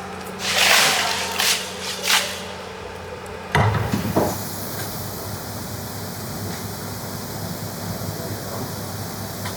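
A few short hissy scrapes and a loud knock, then a steady rush of running water, as of a container being filled with water for a salt brine.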